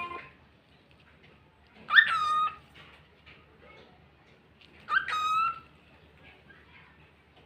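Male cockatiel calling: two loud whistled calls about three seconds apart, each a quick upward sweep that settles into a short level note, with a shorter buzzy note right at the start.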